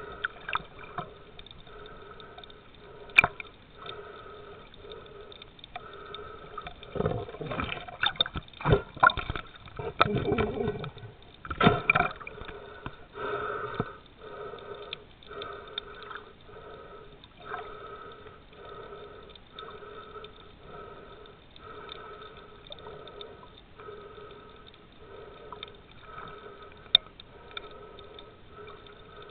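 Muffled underwater sound picked up by a submerged camera: a regular pulsing about once a second, with bursts of bubbling and splashing about seven to twelve seconds in.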